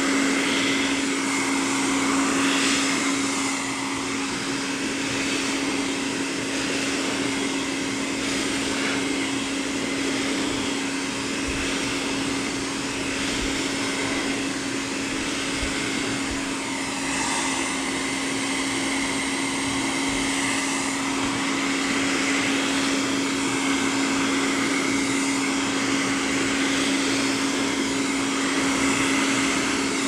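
Hand-held hair dryer running continuously: a steady motor hum under rushing air, blowing wet acrylic paint across a canvas.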